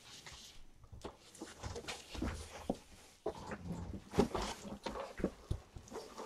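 Kittens eating and moving about: irregular small clicks, knocks and pattering, busiest in the middle.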